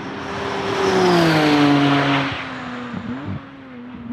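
McLaren Artura race-car test mule's twin-turbocharged 3.0-litre V6 passing at speed. The engine note swells to its loudest about a second and a half in, then drops in pitch and fades as the car goes away.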